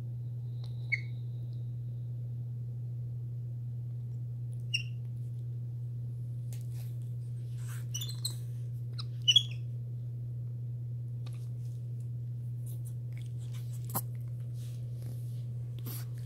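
Capuchin monkeys giving a few short, soft, high-pitched squeaks and chirps, most of them bunched around eight to nine and a half seconds in, over a steady low hum.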